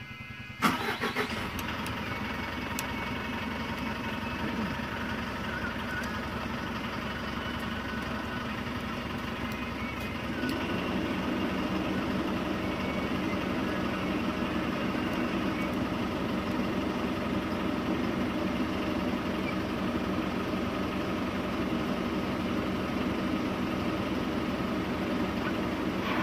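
An engine running steadily, starting abruptly about a second in and getting louder about ten seconds in.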